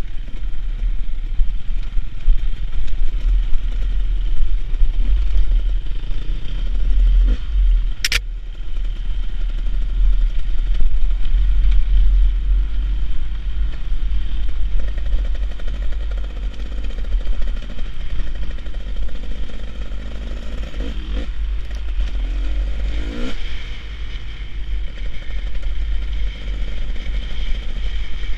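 Beta Xtrainer 300 two-stroke enduro motorcycle running on a dirt trail under a heavy, steady low rumble, its revs rising and falling, with a couple of quick rises in pitch past the two-thirds mark. A single sharp click about eight seconds in.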